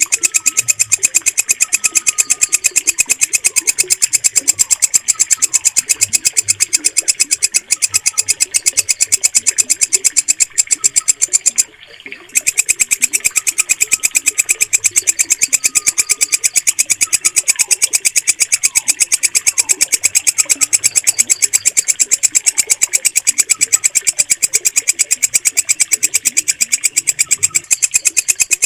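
Walang kecek, a green katydid (bush cricket), stridulating in a fast, steady, unbroken train of shrill pulses, with one brief pause about twelve seconds in.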